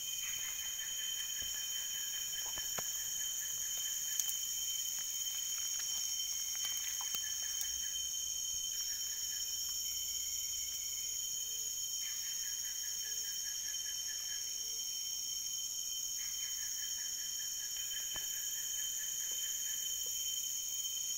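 Rainforest insect chorus after rain: several insects keep up a steady high buzzing, while a lower pulsed trill starts and stops every few seconds. A few faint clicks sound over it, one sharper about four seconds in.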